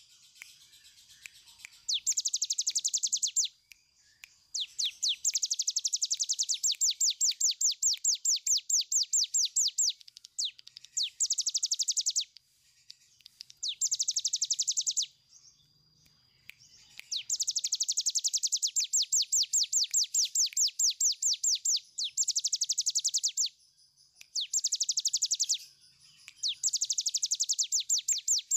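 A cigun (ciblek gunung, a brown prinia) singing its long 'ngebren' trill: fast, even strings of repeated high notes, about eight a second, in bursts of one to five seconds with short breaks between them.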